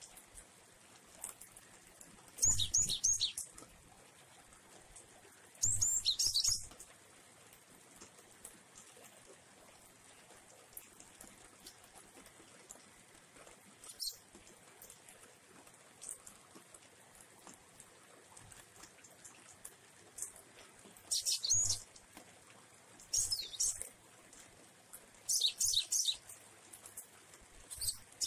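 Caged cinereous tit (glatik wingko) giving short, high-pitched bursts of chirping, about five separate phrases with pauses between them, plus a single click midway.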